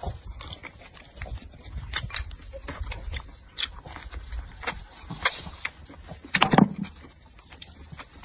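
Chewing and mouth smacking of someone eating braised pork belly, heard as many short irregular clicks, with one louder mouth sound about six and a half seconds in.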